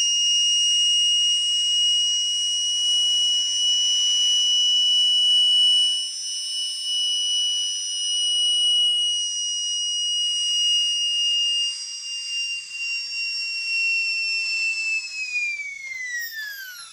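Air-turbine dental drill handpiece running on compressed air at about 4 bar while driving a brushless motor as a generator: a steady high whine over a hiss of air. A little quieter after about six seconds, the whine falls smoothly in pitch over the last two seconds or so as the turbine slows down.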